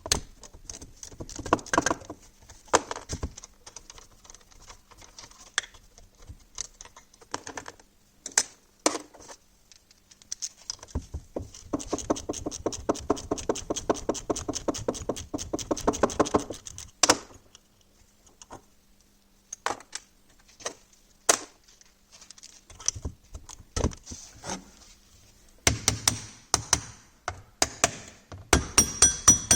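Hand tools and metal parts of a marine starter motor clinking and knocking as it is worked on. About a third of the way in comes a run of rapid, even clicking lasting several seconds, followed by more scattered knocks near the end.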